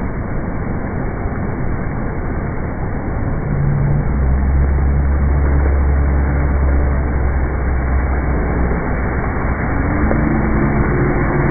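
Giant tipping bucket on a water-park play structure dumping its load: a loud, steady rush of falling water that grows louder about four seconds in, with a deep rumble under it.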